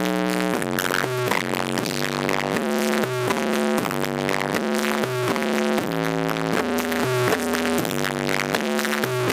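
Electronic dance music with a synth melody that steps through short repeated phrases, played over the ED Audio sound-system rig during a sound check.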